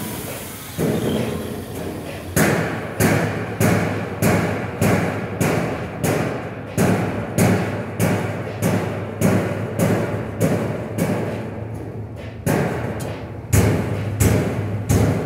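Background music with a steady thumping beat of about two beats a second, starting about two seconds in, with a brief break shortly before the end.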